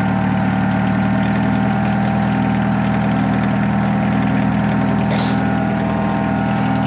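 1988 Suzuki Samurai's swapped-in 1.6-litre VW four-cylinder diesel running steadily at idle, with the electric fuel pump's whine, really loud, carrying over it.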